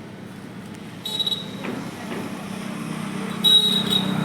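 Two short hissing sprays, one about a second in and one near the end, as lubricant is sprayed onto a motorcycle chain, over a steady low hum.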